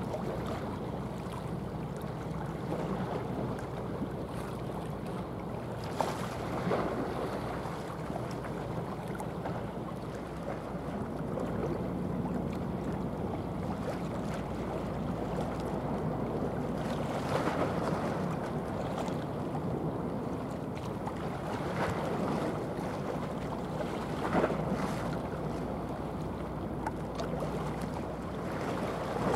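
Low steady drone of a passing container ship's engine, with water washing and gusts of wind on the microphone swelling now and then.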